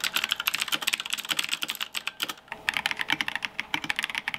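Fast typing on mechanical keyboards, a rapid run of key clicks. First comes a black-base HyperX keyboard with clicky Gateron blue switches; then, after a brief pause about halfway, a white Akko PC75B Plus bought for its thockier switches.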